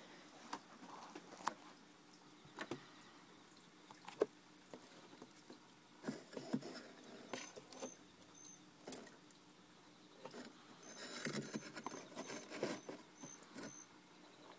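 Faint scattered taps and rustles of sand substrate and handling inside a small reptile tank, busier in two stretches, with a sharper tap a few seconds in. Short high-pitched chirps repeat several times during the busier stretches.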